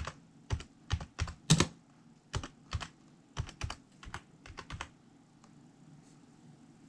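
Computer keyboard keys being struck in a dozen or so irregular taps, stopping about five seconds in.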